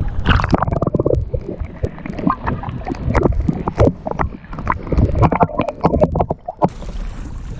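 Water sloshing and gurgling around an action camera as it dips in and out of the sea and goes under: muffled bubbling with many irregular knocks and splashes. Near the end this gives way to a steady hiss.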